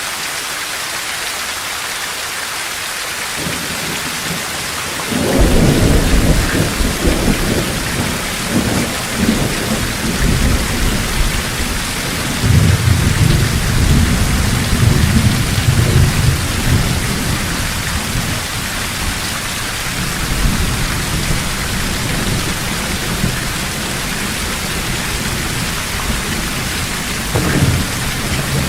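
Thunderstorm in a forest: steady heavy rain falling, with a loud thunderclap about five seconds in that rolls on as a long deep rumble and swells again midway through, and another short rumble near the end.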